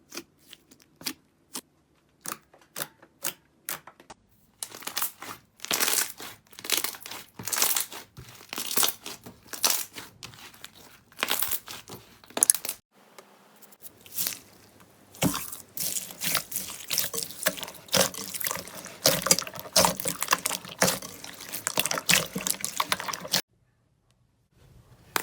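Slime being pressed and kneaded by hand, popping and crackling: a few sharp separate pops at first, then about four seconds in a dense run of crackling with a brief lull in the middle, cutting off abruptly near the end.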